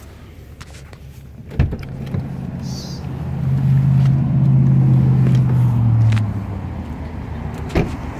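A sharp latch click about a second and a half in, then a low, steady vehicle engine hum that swells louder for a few seconds and eases back, with another click near the end.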